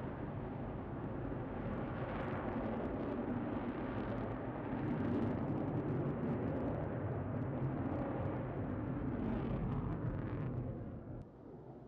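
Military fast jet's engines in a display flight: a steady rushing rumble with crackle, dropping away sharply near the end.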